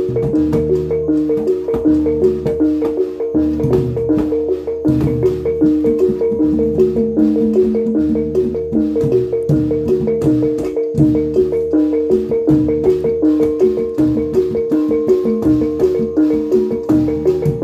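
Live Javanese gamelan accompaniment for jatilan/reog dance. Bronze pot-gongs and metallophones repeat a steady interlocking figure over regular drum and gong strokes at a brisk, even beat.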